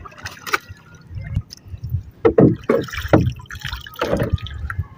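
Water splashing and gurgling against the hull of a small outrigger boat, in irregular surges, with a sharp knock or two near the start.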